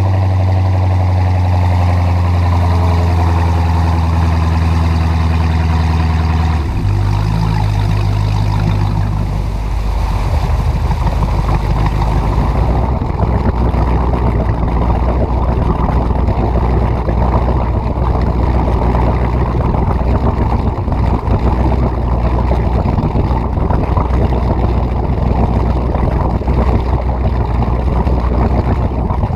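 1976 ski boat's engine running at speed with a steady hum, throttled back about seven seconds in, then running low and uneven as the boat slows, with water noise around the hull.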